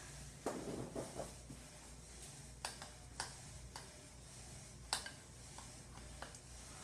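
A spoon clicking and knocking against a bowl while stirring a thick brigadeiro mixture of condensed milk, chocolate powder and margarine. There is a cluster of knocks about half a second in, then scattered single clicks, the sharpest near five seconds.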